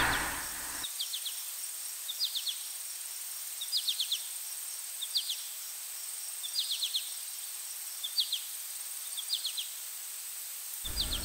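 Outdoor field ambience: a small animal's high chirps come in quick clusters of three or four, repeating regularly about every one and a half seconds over a faint steady hiss.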